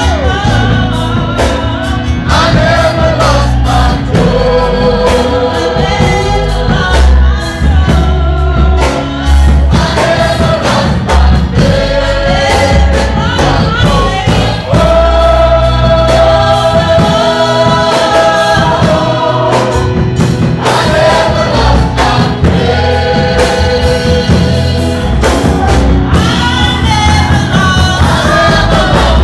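Gospel choir singing loudly, with held notes, over a heavy bass accompaniment.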